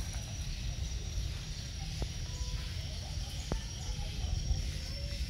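Swiftlets twittering from the surrounding swiftlet buildings, a dense, steady high-pitched chatter, over a low rumble.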